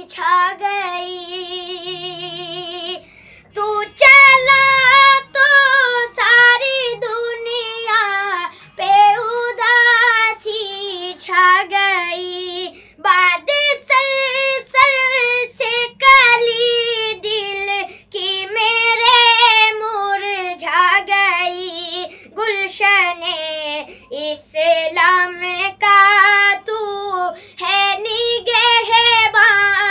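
A boy singing an Urdu farewell-to-Ramadan naat solo, with no instruments, in long held notes with a wavering vibrato and short breaths between phrases.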